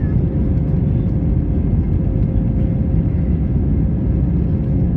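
Airbus A320 cabin noise from a seat over the wing as the jet rolls along the ground: a steady, loud low rumble of engines and wheels, with a thin steady hum running through it.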